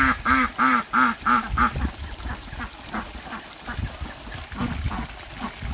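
Domestic ducks quacking: a quick run of about six loud quacks, about three a second, in the first two seconds, then fainter, scattered quacks.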